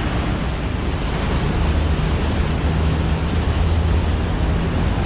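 Steady wind rushing over the microphone, with a low steady hum underneath that grows a little stronger about a second and a half in.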